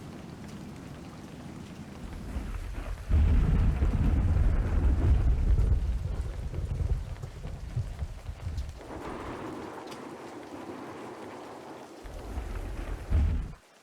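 Heavy rain with strong wind gusts. A deep rumbling surge builds about three seconds in and eases off by about eight seconds, then a lighter rushing gust follows. Another short rumbling surge comes near the end before the sound cuts off suddenly.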